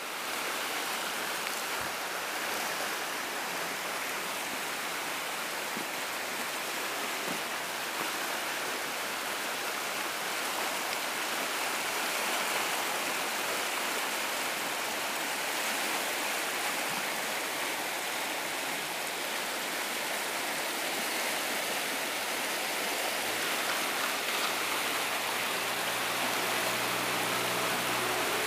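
The River Torridge in spate after heavy rain: swollen, muddy floodwater rushing steadily over and around rocks.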